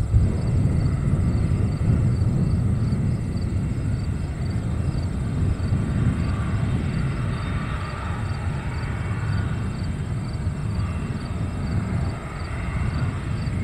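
Cessna Citation 560 XL's twin turbofan engines running steadily at idle as the jet holds lined up on the runway, a continuous low rumble.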